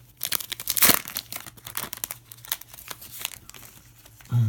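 A trading-card pack's wrapper being torn open and crinkled, with quick irregular crackles that are loudest about a second in.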